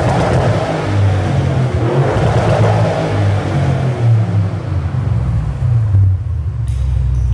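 Audi RS6 C8's twin-turbo 4.0-litre V8 heard at the exhaust tips while standing, revved up and let fall several times. Near the end it settles to a steady idle.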